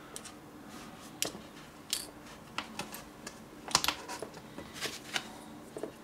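Light plastic clicks and taps, a dozen or so at irregular intervals, as a UK 13 A mains plug is handled and its cartridge fuse is fitted back into the plug's fuse holder.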